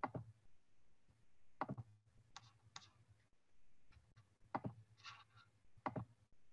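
A handful of faint, sharp computer mouse clicks, some in quick pairs, scattered across several seconds with near silence between them.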